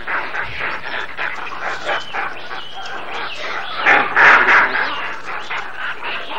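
A troop of rhesus macaques calling in a group fight: many overlapping shrill calls and screams, loudest in a burst about four seconds in.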